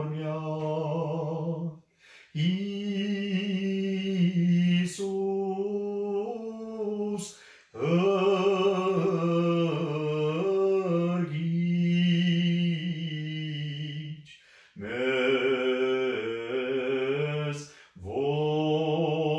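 A man chanting solo and unaccompanied in a low voice, holding long wavering notes. The chant comes in long phrases broken by four short pauses for breath.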